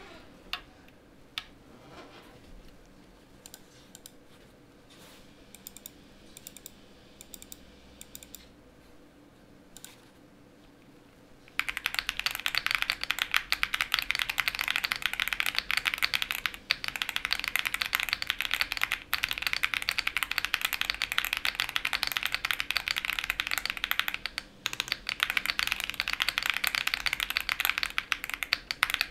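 Wind X R2 mechanical keyboard with a polycarbonate plate, full foam dampening, stock WS Brown tactile switches and PBT keycaps, being typed on. A few faint scattered key clicks for the first eleven seconds or so, then fast continuous typing, a dense run of key clacks with a couple of brief pauses.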